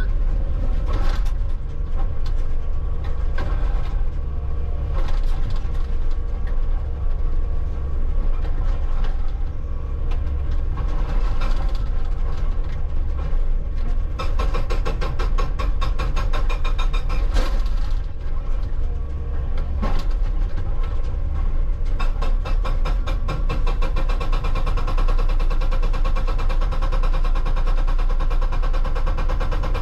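Hitachi 160 excavator's diesel engine working under load while its hydraulic hammer pounds rock in fast, evenly repeated blows. The blows come in scattered strokes at first, then in long runs from about halfway through.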